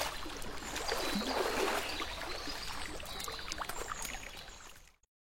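Water splashing and sloshing as a dog swims, fading out near the end.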